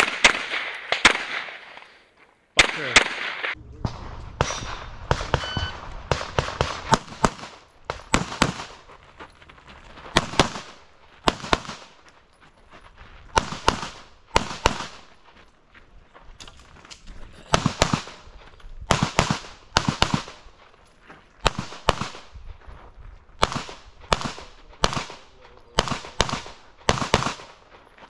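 Semi-automatic pistol fired in competition: shots come in quick pairs and short strings, with brief pauses between groups as the shooter moves between positions.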